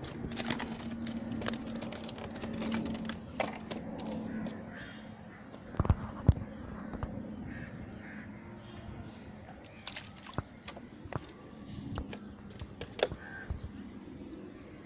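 Crows cawing repeatedly, with a few sharp knocks and clicks in between, the loudest a pair of knocks about six seconds in.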